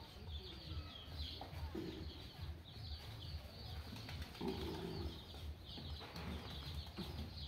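Pigeons flapping their wings in short bursts, with low cooing and many high bird chirps in the background.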